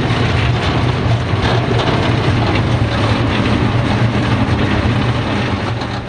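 Engine, road and wind noise from the open rear passenger cabin of a moving songthaew-style pickup taxi: a steady low drone with dense rattling, fading toward the end.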